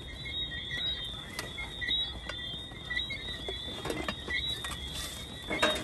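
Steady, high-pitched chirring of night insects, with scattered light clicks and clinks as metal pot lids are handled.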